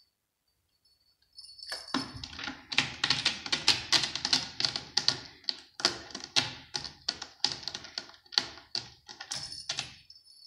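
A cat clawing the sisal rope of a scratching post: rapid rasping strokes, several a second, starting about two seconds in.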